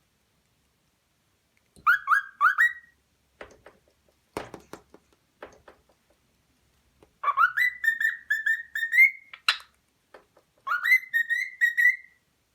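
Young cockatiel whistling three phrases of quick pitched notes that step up in pitch, mimicking the phrase "what are you doing?". The longest phrase comes in the middle, with a short one near the start and another near the end; a few faint clicks fall in the pause between them.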